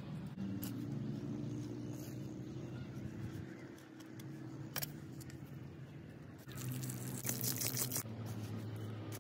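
Hoe blade striking and scraping through clay soil: a few separate knocks, then a dense run of scraping about two-thirds of the way in. A steady low hum runs underneath.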